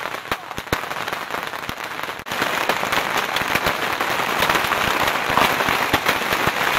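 Fireworks going off at close range at a beehive firework barrage. Scattered sharp pops give way, about two seconds in, to a dense crackle of many going off at once.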